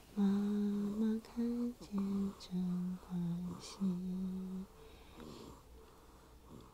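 A person softly humming a slow, lullaby-like tune close to the microphone: about seven held notes that step gently up and down, stopping about four and a half seconds in.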